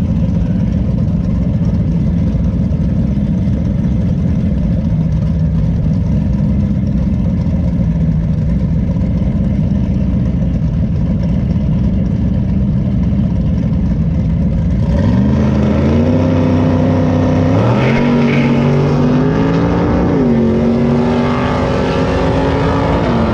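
Drag car's engine running loudly and steadily at the starting line. About fifteen seconds in it launches and accelerates hard down the strip, its pitch climbing and dropping back with each gear shift.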